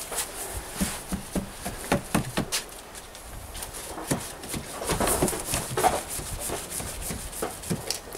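A paintbrush scrubbing paint onto rough wooden boards: a run of short, irregular brushing strokes.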